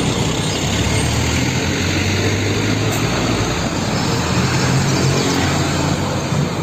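Heavy UD Trucks dump truck passing close on a road: diesel engine running steadily under tyre and road noise.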